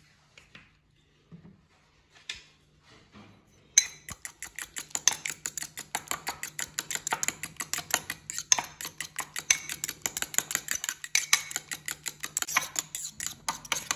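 Metal fork whisking a thick mayonnaise-and-ketchup sauce in a white bowl, the tines clinking against the bowl about four or five times a second. The beating starts about four seconds in, after a few faint taps.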